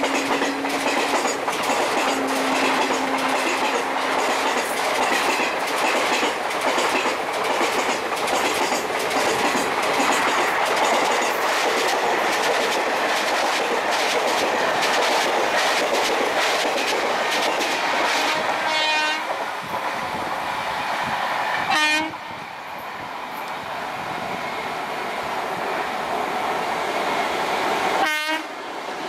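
Coaches of an express rushing past at about 95–100 km/h: a loud steady rush of wheels with rapid clickety-clack over the rail joints, and two held blasts of the WCAM-1 electric locomotive's horn in the first few seconds. In the second half the rush falls away, and short horn blasts sound several times as a WAG-7 electric locomotive approaches with a container freight.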